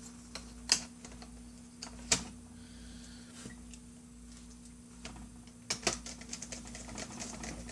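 Light plastic clicks and taps from laptop case parts being handled and fitted. A few clicks come singly, then a quick run of clicks near the end, with a faint steady hum throughout.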